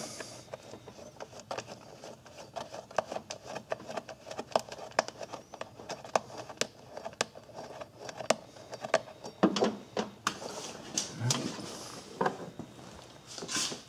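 Light, scattered metallic clicks and ticks of a small bolt being started by hand into a car engine's plastic timing belt front cover.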